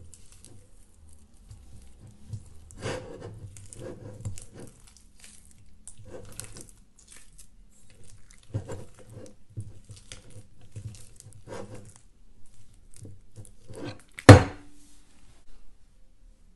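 Neon pink glue slime with small beads mixed in, squeezed and pulled by hand in a bowl: a string of short, irregular sticky crackles and squishes. A single loud thump comes near the end.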